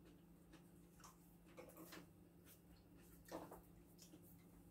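Near silence: quiet room tone with a low steady hum and a few faint clicks, one a little louder about three seconds in.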